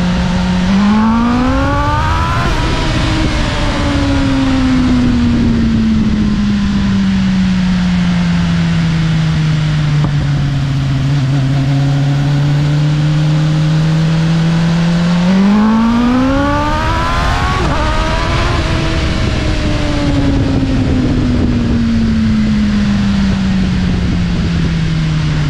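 BMW S1000RR's inline-four engine revving up sharply under hard throttle, then winding down slowly as the throttle is rolled off. This happens twice, the second run starting about fifteen seconds in, over steady wind and road noise.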